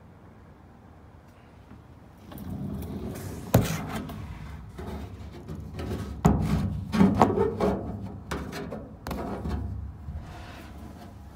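Rubbing and handling noise with several sharp knocks as a phone is moved close along and against a Piper PA-28-140 wing's aluminium skin, starting about two seconds in.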